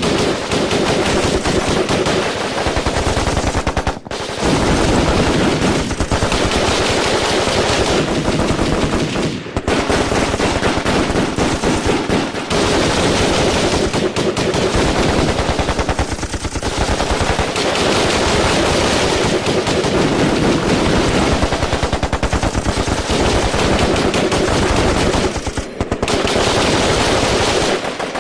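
Firefight: sustained automatic gunfire, machine-gun bursts so rapid they run almost together, with a few short breaks in the shooting.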